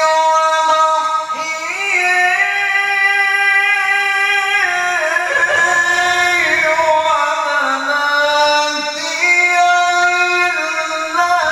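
A male qari's melodic Quran recitation (tilawah) through a microphone: one high voice holding long notes for several seconds each, sliding up and down in ornamented turns between them.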